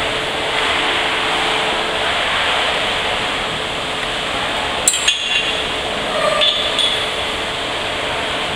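Steady rush of circulating pool water with a faint low hum. One sharp metallic clink about five seconds in, followed by a few brief faint sounds.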